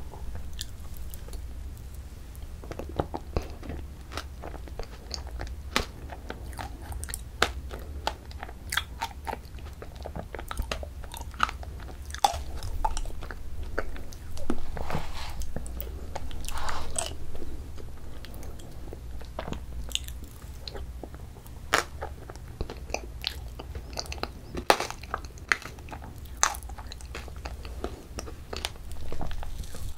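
Close-miked eating of soft ice cream: many short wet mouth clicks and lip smacks scattered irregularly, with a few softer scrapes of a plastic spoon scooping in a paper tub.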